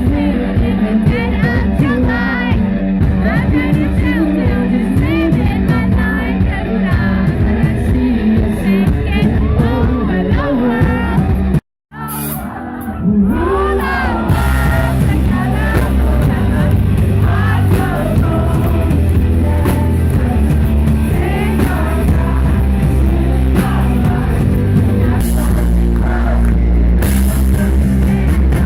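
Rock song with singing. It cuts out abruptly about twelve seconds in, then comes back with a heavier low beat.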